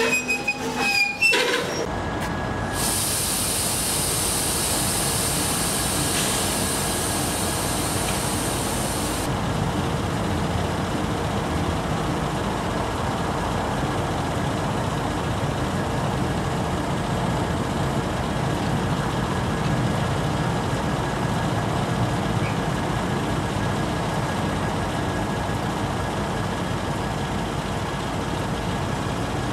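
Train wheels squeal briefly as loaded coal hoppers roll past. After a cut, the diesel engine of a CSX EMD GP39-2 locomotive runs steadily at idle close by, with a high hiss over the first several seconds.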